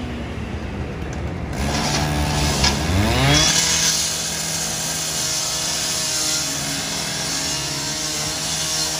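Gas-powered rotary cut-off saw revving up about two to three seconds in, then running at full speed as its blade cuts steadily through the garbage truck's sheet-metal body. The sound drops off right at the end.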